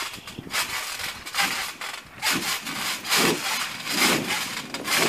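Bare feet bouncing on a trampoline mat covered in Orbeez water beads: a rough, gritty swish each time they land, about once a second, as the beads scatter.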